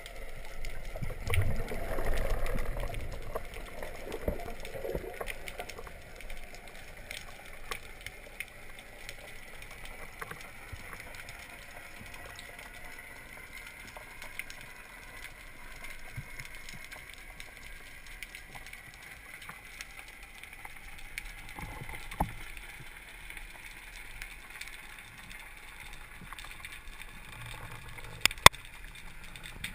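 Underwater sound during a breath-hold dive: water rushing and gurgling past the microphone in the first few seconds, then a low steady hiss with scattered faint clicks and crackles. One sharp click comes near the end.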